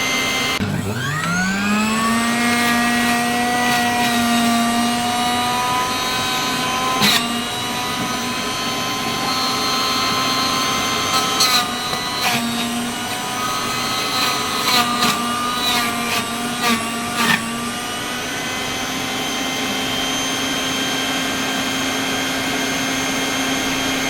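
Sujata juicer-mixer-grinder motor spinning up with a quickly rising whine about half a second in, then running steadily. Several sharp knocks come between about 7 and 17 seconds in.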